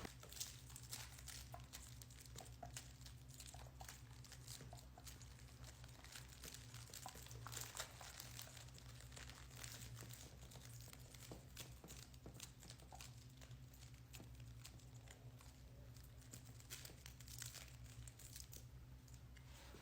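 Near silence: a low room hum with faint, scattered crinkling and small clicks throughout.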